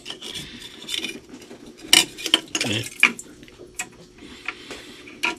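Stainless mesh basket of a marine sea strainer clinking and scraping against its bronze housing as it is handled and lifted out, with a sharp metallic click about two seconds in.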